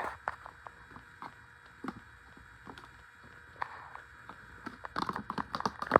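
Packaging being handled during an unboxing: scattered small clicks and crinkles, coming thicker near the end.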